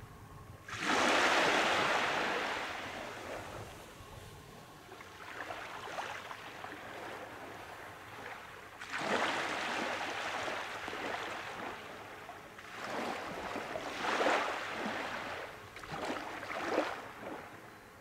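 Small waves breaking and washing up the beach, one after another. The loudest wash comes about a second in and fades over a few seconds, with further washes around nine seconds and several more near the end.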